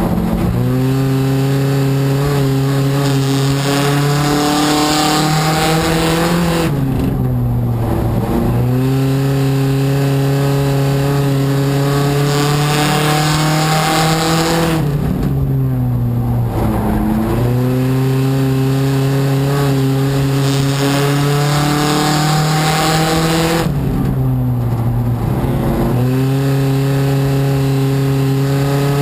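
Race car's engine heard from inside the cockpit, running hard at high revs, its pitch dropping sharply and climbing back three times, about every nine seconds, as the car lifts for the turns of a short oval and accelerates out of them.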